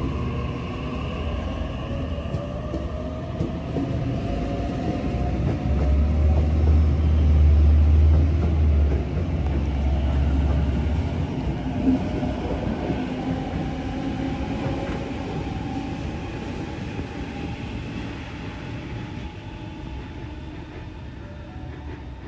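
A Sydney Trains double-deck electric passenger train pulling away from the station. Its traction motors give a rising whine as it picks up speed over a deep rumble, loudest from about six to ten seconds in, and the sound then fades as it leaves.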